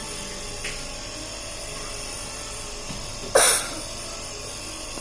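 A steady mechanical hum with fixed high tones. One short, sharp burst of noise about three and a half seconds in is the loudest sound.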